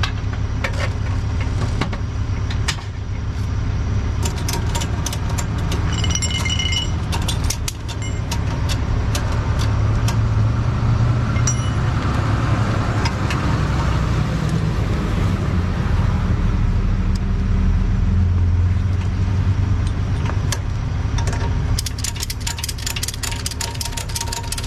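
A vehicle engine, most likely the tow truck's, runs steadily at idle while a tow-truck wheel-lift strap is ratcheted tight around a tire. Sharp metal clicks and rattles of the strap hardware come a few seconds in, and a fast run of ratchet clicks comes near the end.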